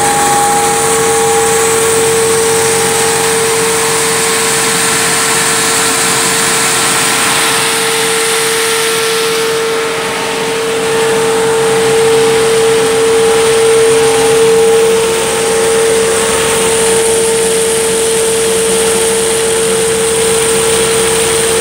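Tractor-PTO-driven mill grinding wet maize grain, running steadily under load with a constant high whine over the drone of the tractor engine.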